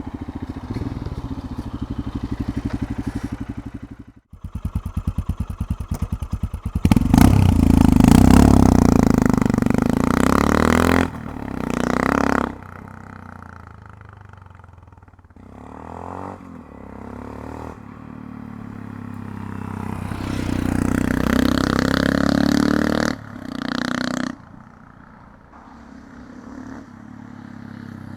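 Royal Enfield Himalayan's single-cylinder engine in a ride-by. It runs briefly on the standard silencer, then after a cut it runs on a Lextek slip-on silencer: it thumps away in distinct firing pulses, rises to its loudest as it accelerates past, then drops away. It swells again twice in rising and falling revs as it passes back, and fades near the end.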